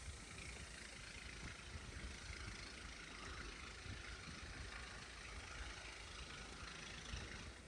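Storm wind blowing against the microphone: a steady hiss over an uneven low rumble. The hiss cuts off suddenly near the end.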